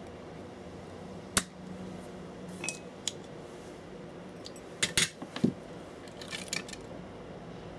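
Sharp clicks and light metallic clinks of a soldering iron and tools being handled and set down on a rubber bench mat, a few isolated ones then a quick cluster about five seconds in. A steady low hum runs underneath.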